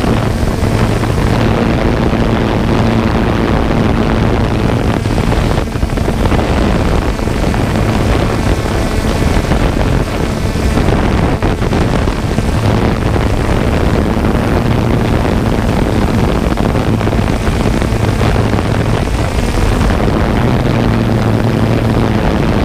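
Multirotor drone's electric motors and propellers buzzing steadily, picked up close by the on-board camera's microphone. The hum at a fixed pitch fades a little in the middle and strengthens again near the end.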